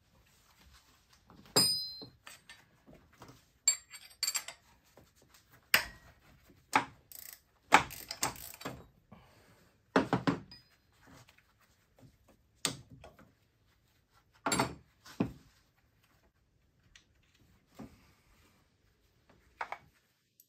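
Metal hand tools clinking and knocking against the AC compressor's mounting hardware as the nut comes off its upper stud: irregular sharp clicks and thunks, two of them ringing briefly at about two and four seconds in.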